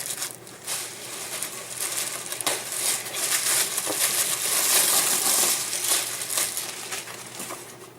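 Packaging crinkling and rustling with scattered small clicks and knocks as a meat grinder body is taken out of its wrapping, busiest in the middle and dying down near the end.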